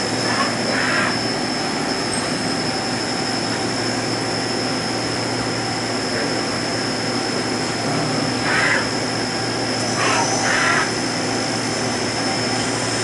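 Takamatsu CNC lathe running a cutting cycle in a machine shop: a steady hum with a constant high whine, broken by a few brief noisy bursts, one near the start and a couple near the end.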